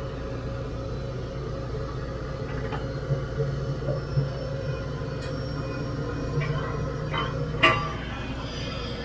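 Steady low hum of idling engines, the airliner's running jet engines and the pushback tug, with a string of sharp clicks and knocks from about three seconds in, the loudest near the end.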